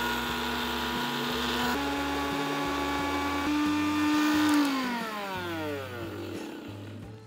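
Indian mixer grinder (mixie) running its small steel jar to grind dry-roasted coriander, pepper, cumin, fennel and dried coconut into a fine powder. The motor runs with a steady whine that steps up in pitch twice, then cuts out about four and a half seconds in and winds down with a falling whine.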